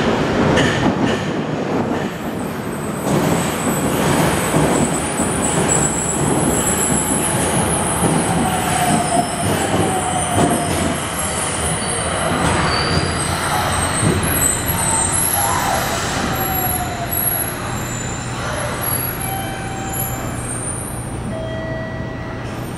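Nagoya Municipal Subway N1000-series electric train arriving at an underground platform and braking to a stop: wheels rumbling on the rails, a motor whine that falls in pitch as it slows, and thin high squeals from the wheels and brakes. Near the end it settles to a steady hum.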